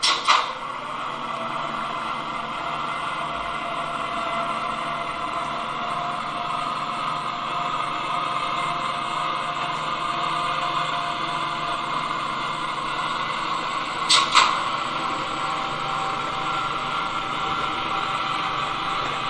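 ESU LokSound decoder in a gauge 1 model E 71 electric locomotive playing its running sound through the model's speaker: a steady electric hum as the locomotive runs. Short double clacks cut in right at the start and again about 14 seconds in.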